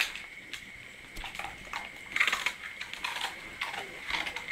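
A dog scuffling and nosing at the ground close to the microphone: irregular short rustling, scratchy noises, loudest about two seconds in, over a faint steady high whine.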